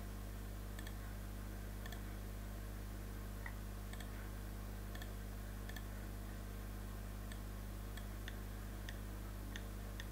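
Computer mouse clicking now and then, a dozen or so separate clicks at uneven intervals, over a steady low electrical hum.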